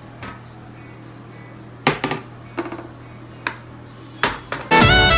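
Several sharp clicks and knocks over a low steady hum, then background music comes in loudly near the end.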